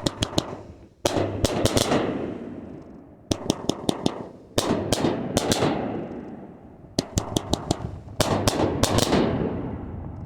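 A Big 'Red Neckery' 25-shot 500-gram fireworks cake firing: quick clusters of sharp cracks and reports about every second or so, each volley trailing off in a fading rush of noise.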